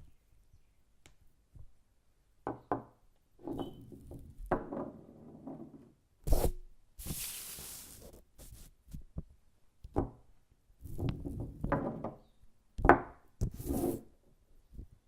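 A string of knocks, taps and rubbing sounds from everyday objects being struck and handled, one after another with short gaps, and a hissing burst of noise lasting about a second and a half around seven seconds in.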